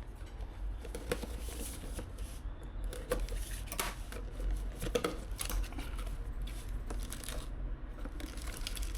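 Rustling and scattered light clicks of objects being handled, over a steady low hum.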